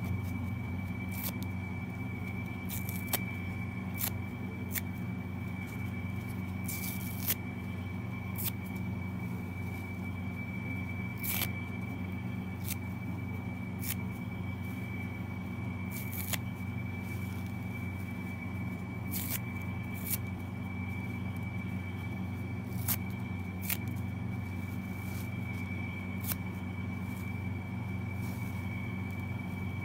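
Kitchen sponges torn apart by hand: short crisp rips and crackles of foam and scrubber pad, about every one to two seconds, over a steady low hum and a faint high whine.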